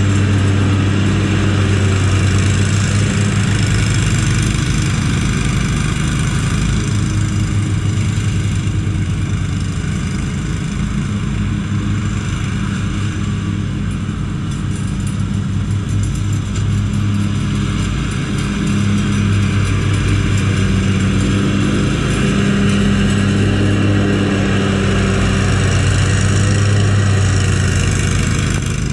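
Commercial zero-turn riding mowers running at full throttle while cutting grass, a steady engine drone with a high whine over it. It eases off somewhat in the middle and grows louder again near the end as a mower comes closer.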